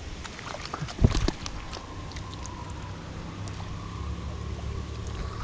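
Handling noise of a small hooked snapper being held and let swing on the fishing line: scattered clicks and a loud knock about a second in. From about two seconds in, a steady low hum sounds underneath.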